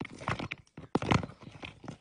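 Tortoise shell knocking and scraping on gravel as the upturned tortoise rocks and scrabbles to right itself: irregular hard clatters, loudest just after a second in.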